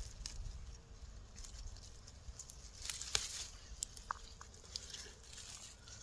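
Faint rustling and crackling of leaves, stems and soil as a clump of wild sorrel is cut and pulled up by the root with a knife, with a few small clicks, busiest about three seconds in.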